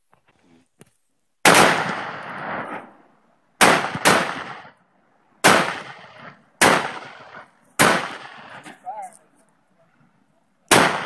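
Rifle shots: seven sharp shots at uneven intervals, two of them close together, each trailing off in a long echo.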